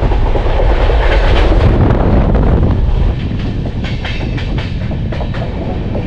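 Indian passenger express train running on the track: a loud, heavy rumble of the wheels and coaches. About three seconds in the rumble eases off, and a run of sharp wheel clicks over rail joints and points follows as the train runs into a station.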